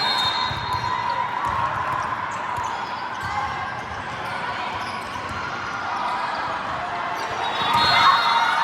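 Gym ambience: crowd chatter echoing in a large hall, with a ball bouncing on the hard court floor and a few short squeaks near the start and about eight seconds in.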